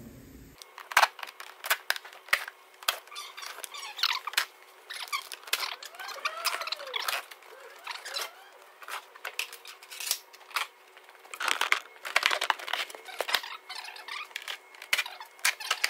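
Plastic wheel arch liner being worked loose by hand: scattered clicks and taps of screws, clips and tools, with squeaks of flexing plastic about six to seven seconds in.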